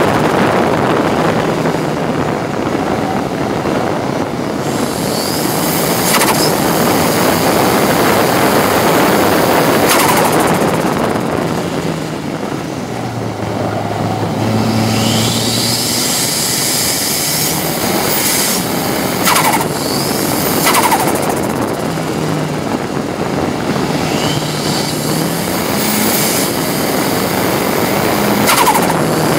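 Ford Sierra RS Cosworth race car's turbocharged four-cylinder engine heard from inside the cabin, running hard, then braking down into a slow corner and accelerating hard again. Several sharp cracks come through the engine noise.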